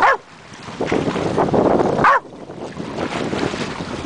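Pit bull giving two short, high yelps about two seconds apart, over a steady rush of sea water and wind on the microphone.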